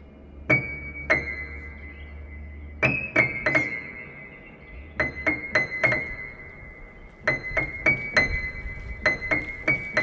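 Background music: sparse, high struck keyboard notes that ring on, over a low drone. The notes come faster and more regularly in the second half.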